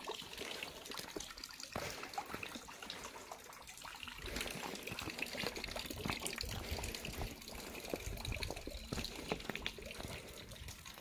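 Running water trickling steadily, with scattered small clicks.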